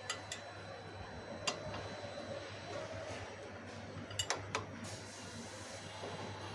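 A handful of sharp metallic clinks and ticks, a pair at the start, one about a second and a half in and a quick group of three past the middle, over a steady low hum.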